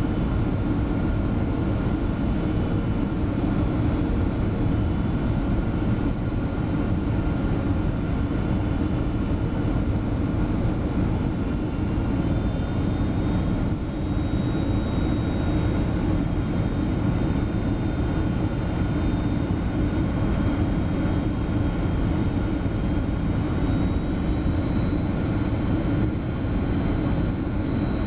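Boeing 757-200 jet engines and rushing air, a steady drone with faint high whining tones running through it.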